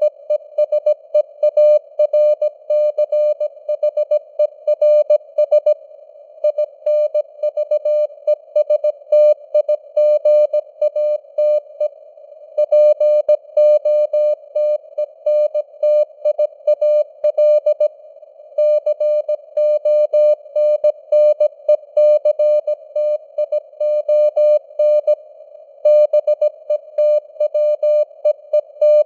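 Morse code (CW) sent at 17 words per minute: a single mid-pitched sidetone keyed on and off in quick dots and dashes over a narrow band of simulated radio hiss, with a few longer pauses between groups.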